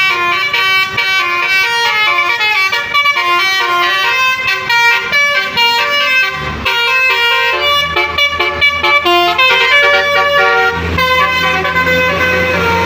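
Telolet musical air horn on a bus, its several trumpets sounding a quick melody of high notes, one after another. A low steady hum joins under the horn near the end.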